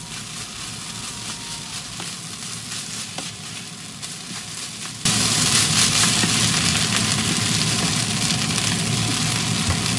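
Fried rice with ketchup sizzling in a frying pan over high heat as it is stirred and turned with a wooden spatula. The sizzling gets suddenly louder about halfway through.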